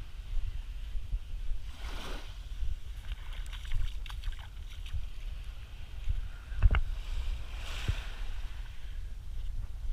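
Wind rumbling on the microphone over small waves washing onto a sandy shore, with a swell of surf about two seconds in and another near the end. A couple of sharp knocks come shortly before the second swell, the first of them the loudest sound.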